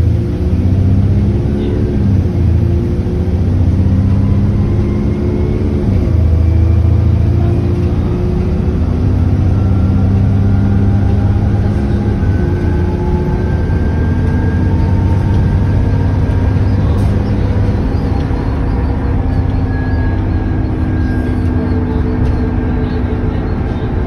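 Alexander Dennis Enviro400 double-decker bus on a Trident chassis accelerating hard under full kickdown, heard from inside the saloon. The diesel engine note climbs and falls back at each automatic upshift, with the gaps between changes lengthening. A whine rises steadily with road speed.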